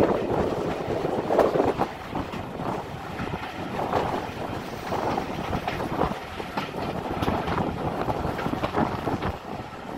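Wind buffeting the microphone from a window of a moving heritage steam-hauled train, over the rumble and irregular clatter of the carriages running on the track.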